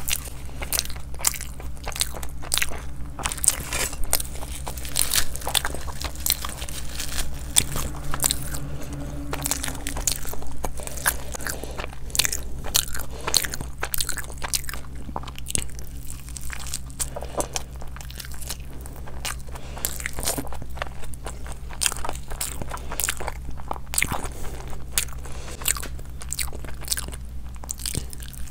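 A person biting and chewing food with frequent irregular crunches.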